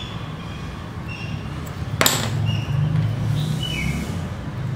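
A single sharp crack about two seconds in as a piece of a spiral seashell's wall snaps off, with quieter handling and rubbing of the shell around it.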